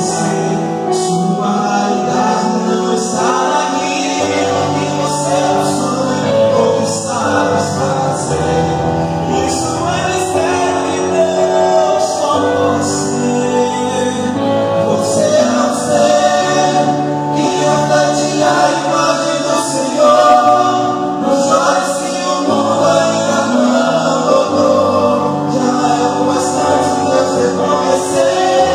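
Male vocal quartet singing a gospel song in harmony into microphones.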